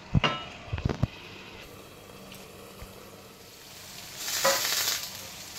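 A stainless steel lid knocking onto a pan several times in the first second, then thick masala gravy sizzling softly as it simmers. About four and a half seconds in a louder burst of sizzling hiss comes as the lid is lifted off.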